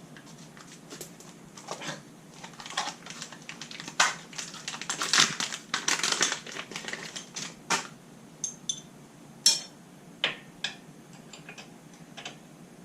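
Irregular metallic clicks, clinks and light knocks of hand tools and small parts being handled, thickest in a busy run a few seconds in, then a few single sharp knocks.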